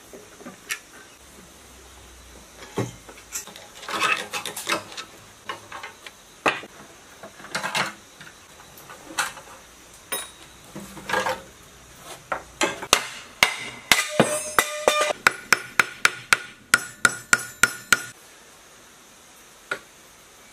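Metal hand tools clinking and knocking on the parts of a scrap diesel engine as it is taken apart. Toward the end comes a quick run of sharp, ringing metal taps, about three a second, that stops suddenly.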